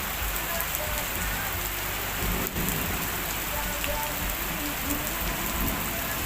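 Heavy rain pouring down: a steady hiss with many small drop ticks.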